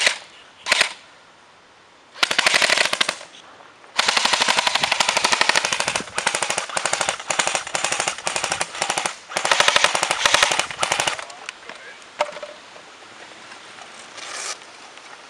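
M16-style airsoft rifle firing: two single shots at the start, a short burst about two seconds in, then long rapid full-auto strings from about four seconds in to about eleven seconds in, broken by brief pauses.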